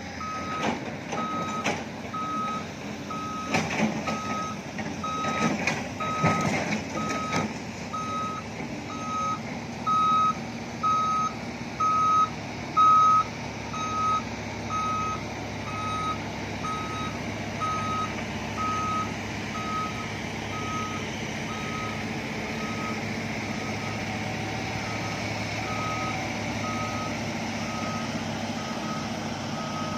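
Heavy-vehicle reversing alarm beeping steadily about once a second over a diesel engine running, with irregular knocks and clatter during the first several seconds.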